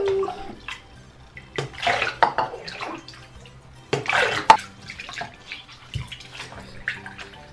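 Water splashing in a bathroom sink as a small wet puppy is rinsed by hand, in short bursts, with the loudest pour from a cup about four seconds in.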